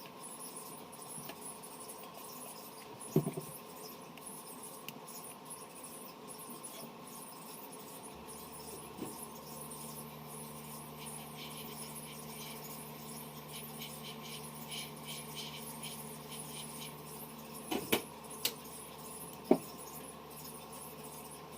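Occasional sharp small clicks and taps over a steady electrical hum and hiss; a second, lower hum starts about eight seconds in, and a light crackling runs through the middle.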